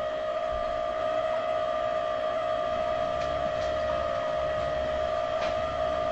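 A steady electronic hum at one mid pitch with overtones, unchanging throughout, with a few faint ticks and a low rumble in the second half.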